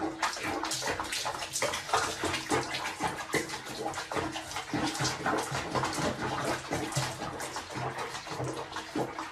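Water sloshing and splashing in a small basin as a cat paddles and shifts about in it, with irregular splashes throughout.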